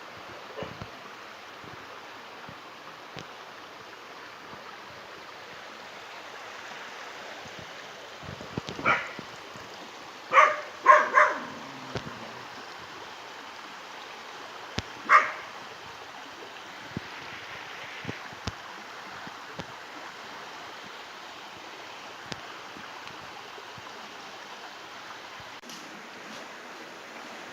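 A dog barking about five times in short bursts around the middle, over the steady rush of a stream or small waterfall.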